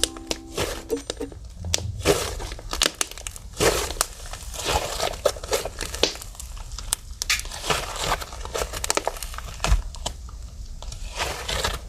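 Fluffy slime being kneaded and squeezed by hand, giving irregular crackling and squishing pops.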